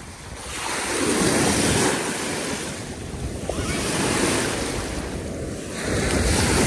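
Lake Superior waves washing onto the shore in three swells, about one every two and a half seconds, with wind buffeting the microphone.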